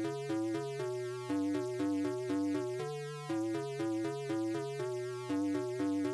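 Electronic synthesizer music: a repeating melody of short, evenly spaced notes over a stepping bass line.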